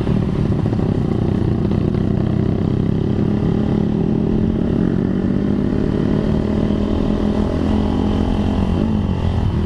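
Motorcycle engine running while riding, heard from the rider's seat, its pitch rising gently partway through and dipping briefly near the end.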